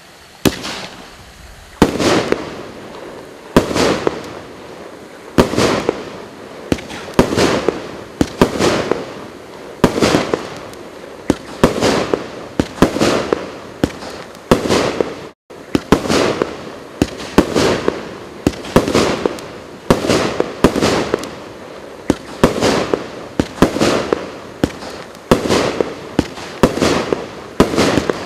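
A 36-shot consumer fireworks cake with 1-inch (25 mm) tubes firing its shots in steady succession, about one a second. Each shot is a sharp bang with a short fading tail. There is a momentary break about halfway.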